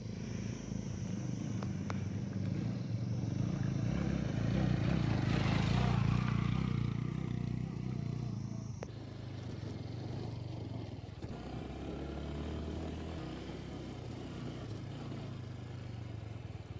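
Motorcycle engine running under load as it climbs a steep, rocky dirt track, rising to its loudest about five or six seconds in; near nine seconds in the sound changes abruptly and the engine carries on more quietly.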